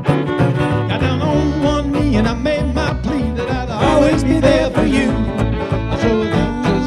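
Bluegrass string band playing an instrumental break, a busy run of quick notes over a steady rhythm, with no singing.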